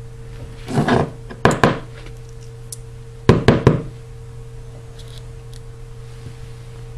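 Sharp knocks and clatters of a disassembled iPhone 4S and a small screwdriver being handled against a wooden table: two short clusters about a second in and another a little after three seconds. A steady low hum runs underneath.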